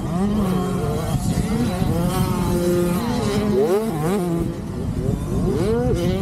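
Several youth mini dirt bikes riding, their small engines revving up and down with pitch rising and falling in quick swoops.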